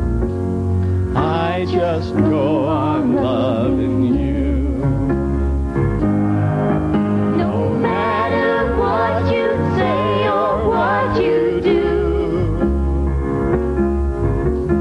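Music: a song with a singing voice that wavers in pitch, over instrumental backing with a steady bass line.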